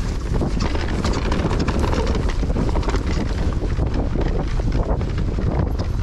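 Mountain bike riding fast down a dirt singletrack: wind buffeting the microphone over a steady low rumble of tyres on dirt, with many quick clicks and rattles from the bike over roots and bumps.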